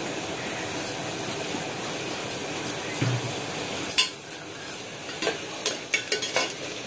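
Chopped onions sizzling in hot oil in a pressure cooker while a perforated steel skimmer ladle stirs them, scraping and clinking against the pot. The clinks and knocks come often from about four seconds in.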